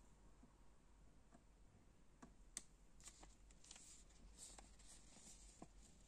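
Faint handling noises: a few light clicks about two to three seconds in, then soft rustling of a paper sheet, a printed tube settings chart, being held up.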